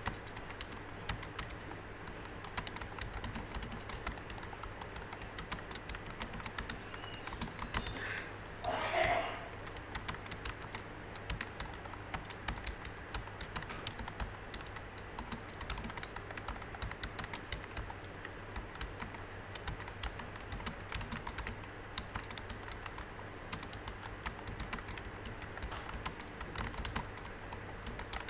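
Fast, steady typing on a computer keyboard, a continuous stream of key clicks as in a timed typing test. A brief louder sound breaks in about eight to nine seconds in.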